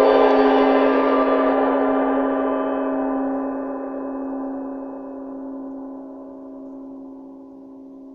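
A 49 cm hand-engraved Nepalese gong ringing out and fading steadily. Its higher overtones die away first, and a single low hum lingers longest.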